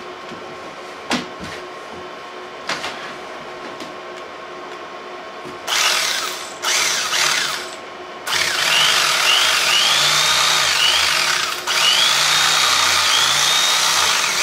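A few light knocks, then a corded electric carving knife buzzes in two short bursts about six and seven seconds in and runs steadily from about eight seconds in as its blades saw through the case's foam insert. A short rising squeak repeats about once a second while it cuts.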